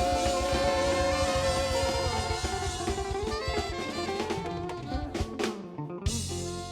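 Live gospel praise band playing a song out: held notes over a steady drum beat, then drum-kit fills and hits as the music winds down near the end.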